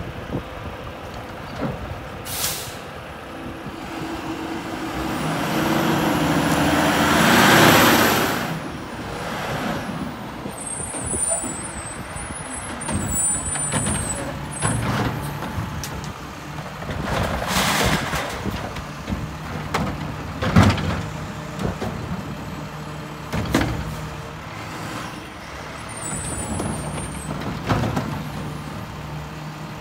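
Mack garbage truck with a Curotto-Can automated arm running at the curb as the arm lifts and empties carts. The engine revs up to a loud peak about eight seconds in, and there are short sharp hisses of air and clunks of carts and the arm.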